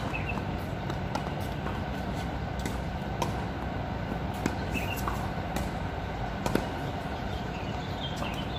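Tennis ball struck by rackets and bouncing on a hard court: sharp, short pops every second or so, the loudest about six and a half seconds in. A steady background rumble runs underneath.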